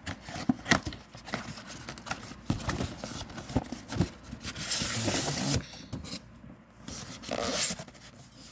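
Drone packaging being opened and handled: scattered clicks and taps, with a longer tearing, scraping rustle about five seconds in and another brief one near the end.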